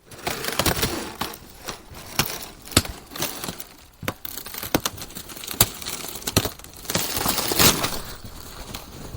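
Ice cracking and breaking: a run of irregular sharp cracks and snaps over a constant crackle, growing denser about three-quarters of the way through.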